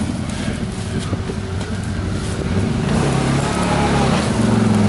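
CFMOTO ZForce 1000 side-by-side's 963 cc V-twin engine running under load as it climbs through a rough ditch. Its pitch rises from about three seconds in.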